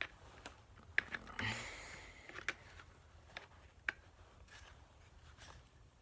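Light clicks and taps of the disassembled BB gun's small parts being handled and fitted, with a short scrape a little after a second in.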